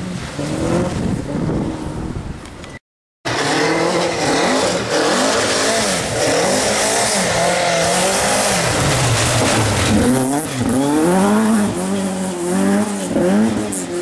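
Ford Escort Mk2 rally car at full throttle on a loose gravel and mud forest track. Its engine revs rise and fall quickly several times in the last few seconds through gear changes, over a spray of tyre and gravel noise. Before a brief cut just under three seconds in, a Subaru Impreza rally car is heard driving off at high revs.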